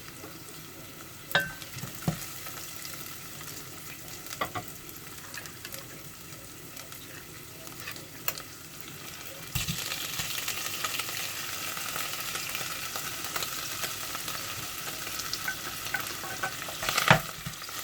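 Onion, garlic and ginger frying in olive oil in a pot, a steady sizzle that grows louder about halfway through. A utensil stirring knocks against the pot a few times, the loudest knock near the end.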